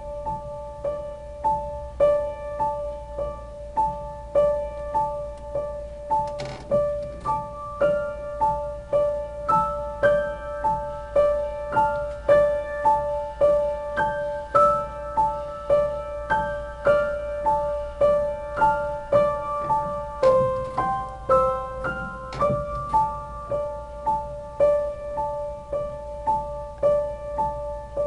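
Solo piano playing a soft, gentle piece: a steady repeated figure of high notes, with a melody moving above it through the middle.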